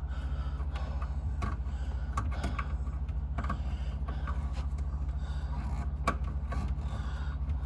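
Scattered light clicks and knocks of a hot-water supply line and its fitting being handled onto the valve under a bathroom sink, over a steady low hum.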